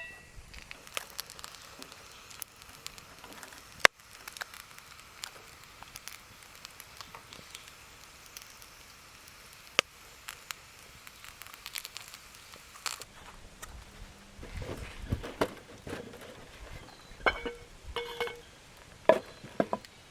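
Wood campfire crackling, with scattered sharp pops from the burning wood, the loudest about four seconds in.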